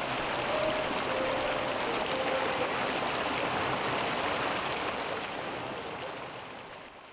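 Mountain stream rushing over rocks, a steady dense wash of water that fades out over the last couple of seconds.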